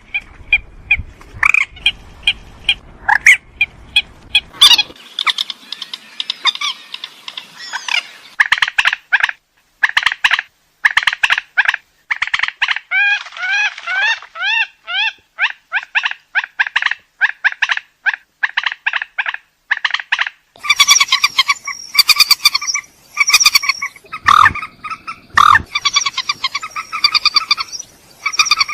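Burung mandar (rail) calling: long, fast runs of short, harsh, croaking notes, some sliding in pitch, getting denser and higher-pitched for the last several seconds. It is a rail-call recording used as a lure to draw rails in.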